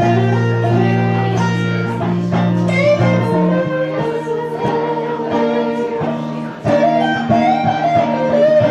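Electric guitar playing an instrumental passage of picked notes over chords.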